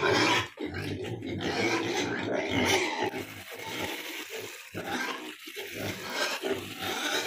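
Duroc–Large White cross pigs grunting in a pen, with rough, repeated calls broken by short pauses.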